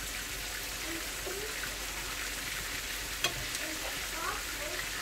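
Breaded chicken wingettes sizzling steadily as they fry in hot oil in a frying pan, being turned with tongs, with one sharp click about three seconds in.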